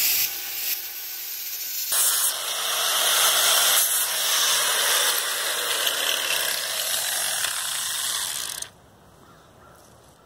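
Electric angle grinder with a flap disc running at speed, grinding on the steel of an old axe head, with a steady high whine over a harsh grinding hiss. The sound stops abruptly near the end.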